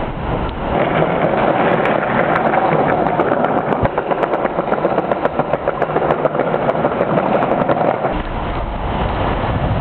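Skateboard wheels rolling over a tiled floor: a steady rolling rumble with many small clicks from the tile joints, from about a second in until about eight seconds in.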